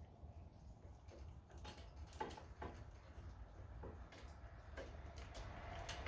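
Faint, irregular light clicks and taps as a new throttle cable is worked up through a hole in the tractor's engine bay.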